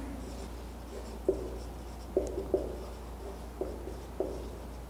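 Marker pen writing on a whiteboard: short separate taps and strokes, about half a dozen spread across a few seconds.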